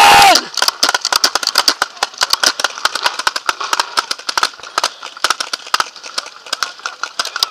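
Paintball markers firing across the field: a dense, irregular run of sharp pops, several a second. A loud shout ends about half a second in.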